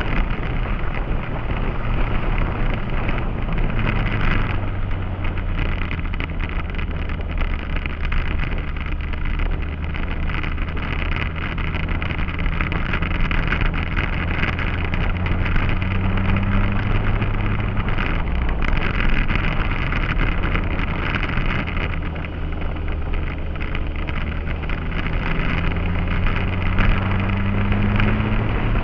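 Motorcycle engine running under way, heard through heavy wind noise on the microphone. Its pitch climbs as the bike accelerates, once midway and again near the end.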